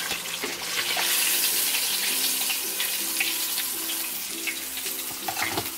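Freshly deep-fried chicken sizzling: a steady hiss with fine crackles from the hot oil in its crust.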